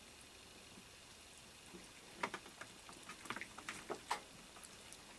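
Cats eating fish from plates: quick, irregular wet chewing and smacking clicks, bunched into a flurry about two seconds in that lasts a couple of seconds.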